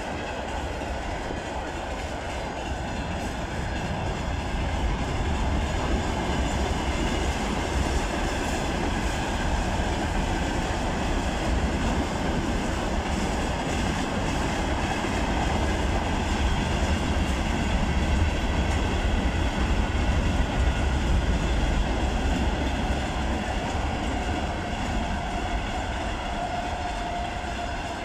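Freight train of tank cars and flatcars rolling past at steady speed: a continuous rumble of wheels on rails, swelling a little midway. A thin steady squeal comes in near the end.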